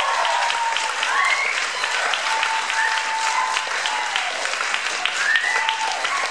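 Audience applauding loudly, with cheering voices rising over the clapping a few times.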